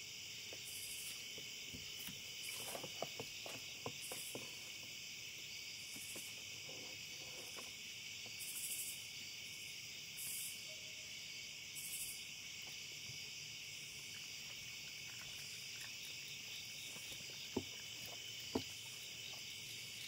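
A steady chorus of night insects, crickets, chirring high, with a separate high insect buzz pulsing on and off about once a second. Scattered small clicks and taps run through it, with two sharper clicks near the end.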